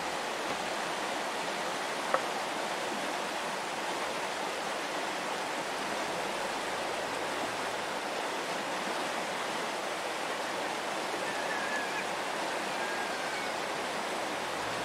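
Steady rush of flowing river water, with a single sharp click about two seconds in.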